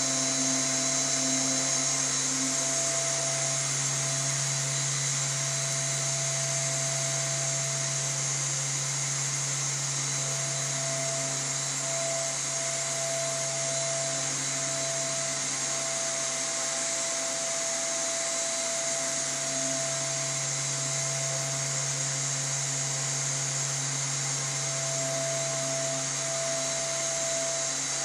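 Electric fan or blower running steadily: a continuous whirring hiss over a low hum, with a faint wavering tone that comes and goes; the hum drops away for a few seconds just past the middle.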